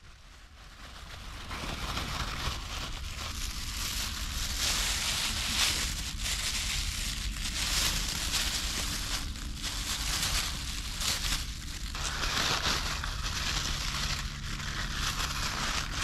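Thin plastic food bag crinkling and rustling as it is handled and squeezed, with chicken wing pieces being added and kneaded into a karaage marinade inside it. The sound fades in over the first couple of seconds.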